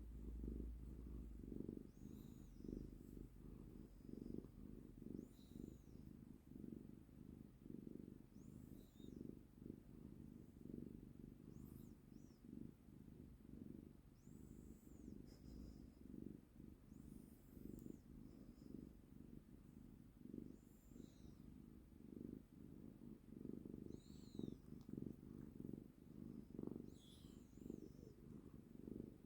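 Domestic cat purring steadily, a low rumble that swells and fades with each breath, the sound of a contented cat being held. Faint short high chirps are heard every few seconds.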